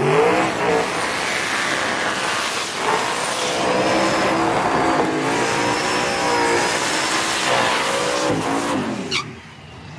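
Drag cars' engines revving hard and wavering in pitch through burnouts, rear tyres spinning on the track. The sound drops off abruptly near the end.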